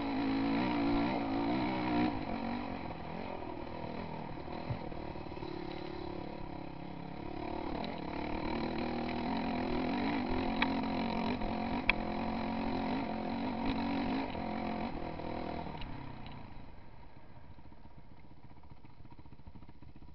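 Enduro dirt bike engine pulling uphill, its pitch rising and falling with the throttle, with a couple of sharp knocks around the middle. About three-quarters of the way through it drops to a quieter idle.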